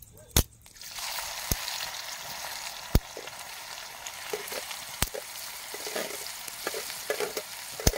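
Food frying in hot oil in a cooking pan: a steady sizzle starts about a second in and carries on, with a few sharp clicks.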